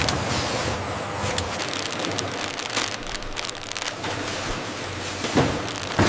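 Factory machinery running with a low hum, with frequent irregular clicks and knocks and a few sharper knocks near the end.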